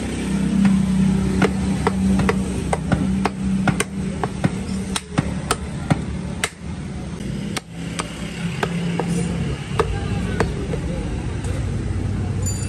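A heavy butcher's cleaver chopping beef on a wooden log block: repeated sharp, irregular chops, about one or two a second. A steady low hum runs underneath.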